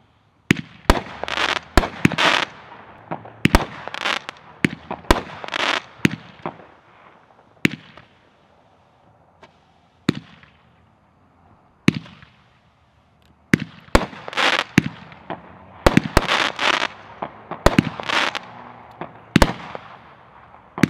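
Black Cat Blue Marlin firework firing shot after shot: sharp reports, many followed by a short hissing rush as the shots open in the sky. A lull of about five seconds comes in the middle, then a quick run of shots resumes.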